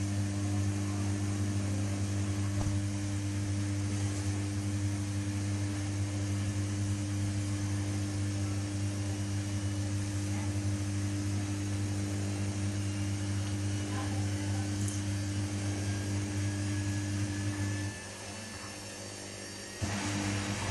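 Samsung WW80J5555FWEU washing machine running on a Daily Wash 40°C programme: a steady low electrical hum that cuts out about eighteen seconds in and starts again near the end with a sudden rush of noise.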